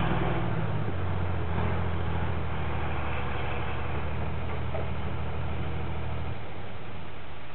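M816 6x6 wrecker's six-cylinder diesel engine running steadily, with a low hum that drops off about six seconds in and fades further near the end.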